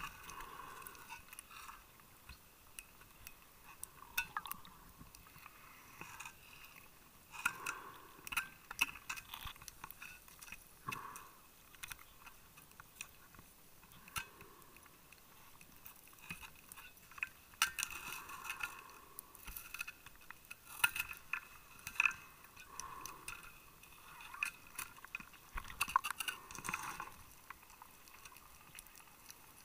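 Underwater sound of a scuba diver's exhaled bubbles gurgling out of the regulator in bursts every few seconds. Scattered sharp clicks and crackles run between the bursts.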